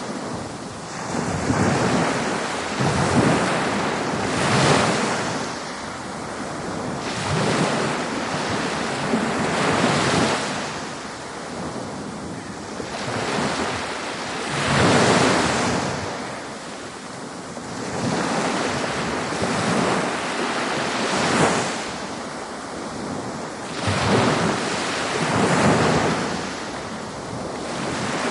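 Ocean surf breaking on a beach: a steady wash of water noise that swells with each breaking wave every few seconds and draws back between them.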